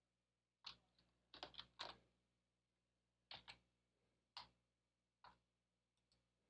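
Faint, irregular clicking of a computer keyboard and mouse, about ten clicks with a quick run of four about a second and a half in.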